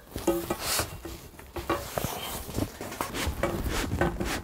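A long mounting pole being fed through the slots along the side of a pop-up hunting blind, scraping and rubbing against the blind with irregular short knocks and clicks as it is pushed along.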